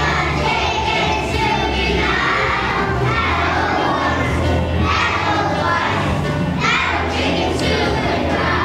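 A group of young children singing a song together loudly, close to shouting, over a music accompaniment, with a crowd of children's voices around them.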